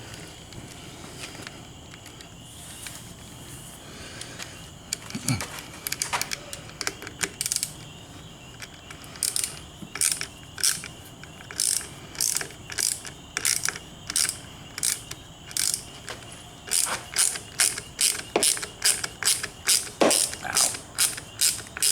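Hand ratchet clicking in repeated short strokes as a screw on the handlebar controls is driven in and tightened, the strokes coming faster, about two a second, near the end.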